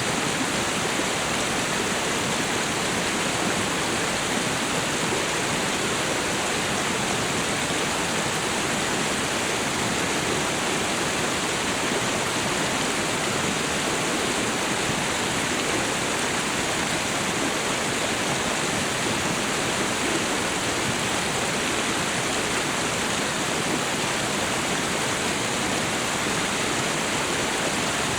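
Waterfall and river water rushing continuously, an even, unchanging roar of falling and running water.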